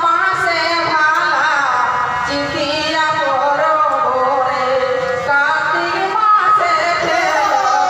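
A woman sings a traditional Ahira folk song into a microphone, amplified over a PA, her melodic line rising and falling over steady held accompanying notes.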